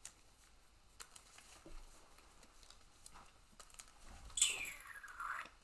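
Sleeved trading-card deck being shuffled by hand: faint scattered clicks of cards, then about four seconds in a brief louder swish that falls in pitch.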